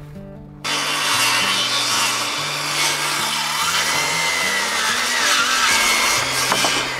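Battery-powered chainsaw cutting through a wooden board. It starts suddenly just over half a second in and cuts steadily, its pitch wavering a little under load.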